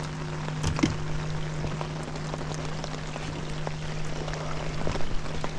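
Rain falling on the water and the boat: a steady hiss with scattered drop ticks, over a low steady hum.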